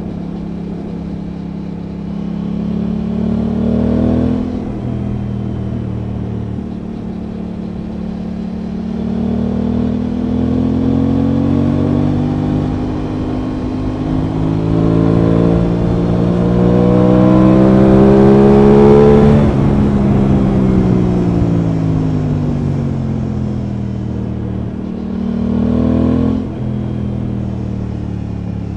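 Aprilia Tuono 660 parallel-twin engine running under way. The revs rise briefly and drop suddenly about four seconds in. They then climb steadily to their highest and loudest point about two-thirds of the way through, fall away again, and rise and drop sharply once more near the end.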